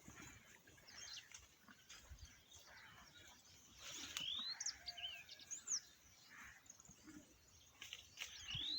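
Birds chirping faintly outdoors: scattered short whistled notes that sweep up or down in pitch, coming in small clusters about halfway through and again near the end.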